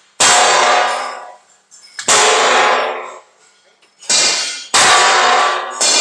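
Loud clangs of steel being struck, five ringing blows spaced irregularly one to two seconds apart. Each rings out and dies away over about a second.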